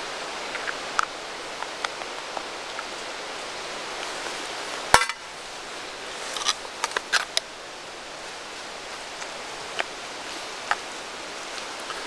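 Spoon clinking and scraping against an aluminium cooking pot while food is stirred and eaten. There is one sharp clink about five seconds in, a quick run of clicks a second or two later and a few lighter ticks, over a steady rushing hiss.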